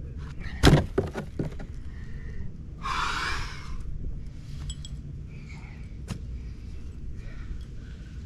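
Hand digging around a buried water meter's broken PVC pipe: one sharp knock followed by a few lighter clicks, then a scrape lasting under a second, and a single click later on.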